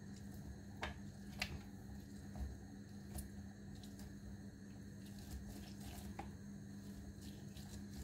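Orange half being pressed and twisted on a plastic hand citrus juicer: a few faint, short, wet squishes as the juice is squeezed out, the loudest about a second and a half in.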